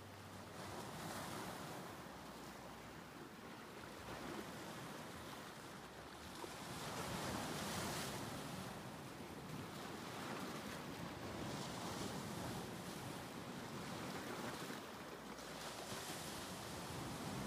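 Small wind-driven waves washing and breaking along a lakeshore, the water noise swelling and easing every few seconds, with wind.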